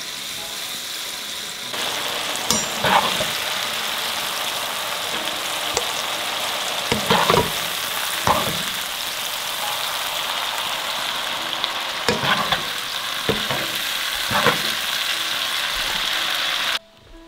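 Oil sizzling steadily in a wok as whole chilies, shallots and garlic fry for sambal, with a metal skimmer scraping and knocking against the pan several times. The sizzle cuts off suddenly near the end.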